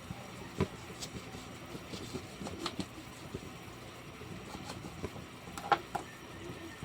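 Scattered light knocks and clicks of kitchen handling over a steady low hum, with the loudest knock near the end.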